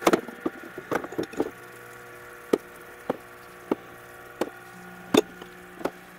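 Steel differential parts (pinion flange and bearing housing) knocking and clinking against each other and the parts-washer tub as they are scrubbed clean by hand, about ten sharp knocks at irregular intervals. A steady low hum runs underneath.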